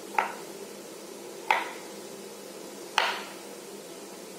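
Kitchen knife chopping down through a block of tempeh onto a cutting board: three sharp knocks about a second and a half apart.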